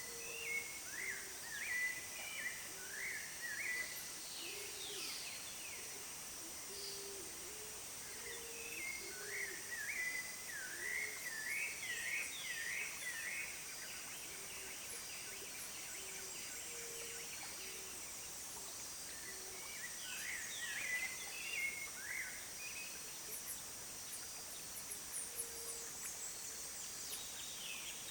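Birdsong outdoors: a bird sings rapid rising-and-falling phrases in three bouts, with short low calls repeating alongside. A steady high-pitched insect drone runs underneath.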